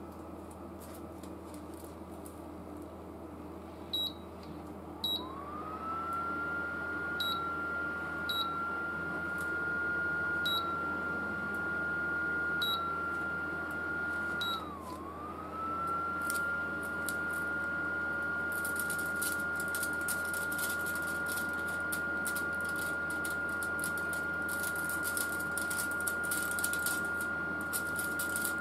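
Induction cooktop's touch panel beeping at each button press, about seven short beeps, then its cooling fan spinning up and running with a steady whine that dips briefly and recovers. Near the end, aluminium foil crinkles as it is handled.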